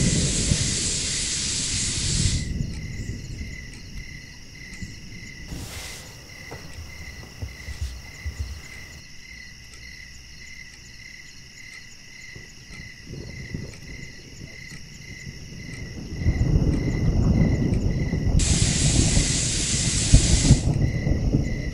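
Steam hissing from a pressure cooker on a gas burner: loud for the first two seconds, quieter through the middle, then loud again in the last few seconds. Under it, a soft regular ticking about twice a second.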